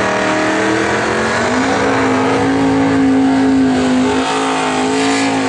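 Two drag-racing cars, one a 1968 Pontiac Firebird with a 670 hp engine, running loud at high revs as they cross the finish line. The engine note shifts during the first second or so, then holds at a steady pitch.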